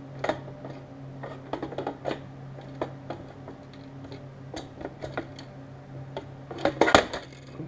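Scattered clicks and knocks of hard plastic and metal as a siren amplifier unit is pushed and wedged down into a center console, with a short cluster of louder knocks near the end. A steady low hum runs underneath.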